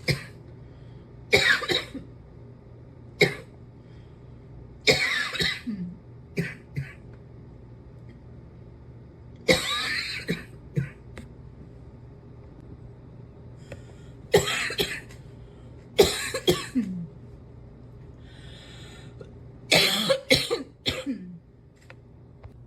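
A lingering cough, in about eight separate bouts of coughing a few seconds apart, some in quick runs of two or three coughs.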